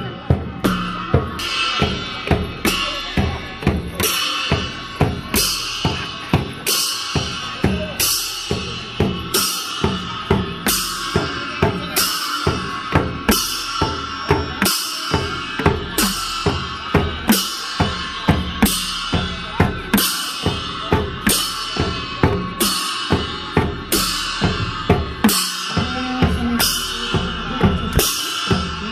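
Newar dhimay barrel drums beaten in a steady, driving rhythm, with hand cymbals clashing about once a second and ringing between strokes: traditional processional music for the Lakhe dance.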